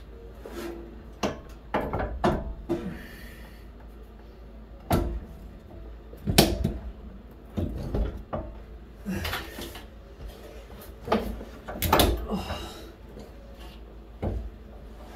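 Irregular clunks and knocks of heavy metal parts being handled and worked into place, about a dozen, a few with a short metallic ring, with a couple of brief scrapes.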